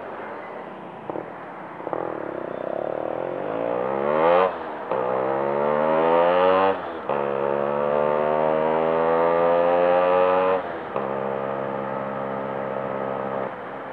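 Two-stroke Yamaha RX motorcycle engine accelerating hard, its pitch climbing and then dropping sharply three times as the rider changes up through the gears, before settling to a steady cruise and easing off near the end, with wind rush on the microphone.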